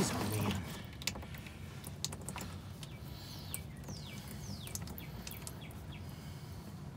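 Scattered light clicks and scrapes as a hand unscrews a spin-on oil filter. A few falling bird chirps come in near the middle.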